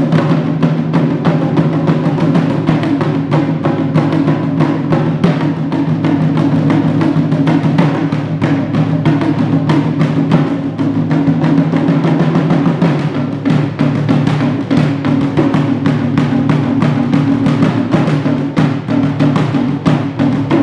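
An ensemble of taiko drums beaten with wooden sticks, a fast, unbroken stream of loud strokes with a deep resonant drum tone under them.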